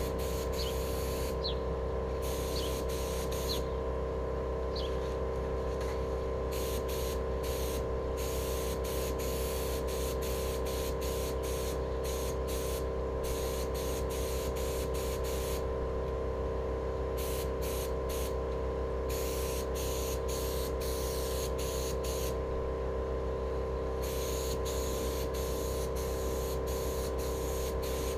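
HVLP air spray gun hissing in short bursts, on and off many times, as its trigger is worked to spray paint onto steel wheels. A steady hum runs underneath.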